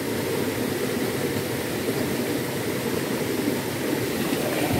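Steady rushing of a fast-flowing forest stream, an even noise with no separate events.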